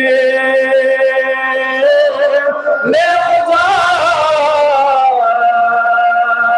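A man's voice chanting a Balti devotional munajat in long held notes, stepping between pitches with a wavering ornament in the middle.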